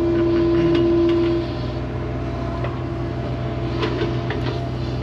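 John Deere 50G compact excavator's diesel engine running steadily, heard from inside the cab. The hydraulics give a steady whine under load that eases off about a second and a half in, with a few light knocks as the bucket digs into the soil.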